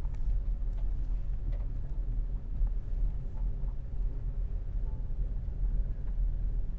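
Car engine running, heard from inside the cabin as a steady low rumble, with a few faint ticks.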